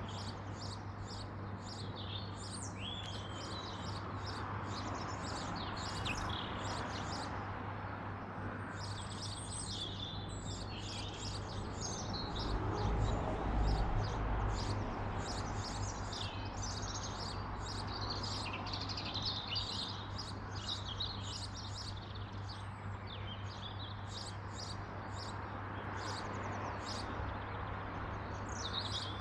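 Garden birds chirping and singing, a dense run of many short, quick high calls throughout, over a steady low hum. A low rumble swells briefly about halfway through.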